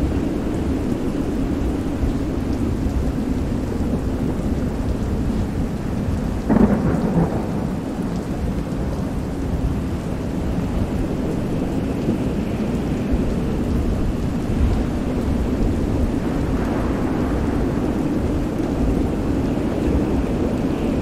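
Steady rain in a storm soundscape, with a sudden crack of thunder about six and a half seconds in.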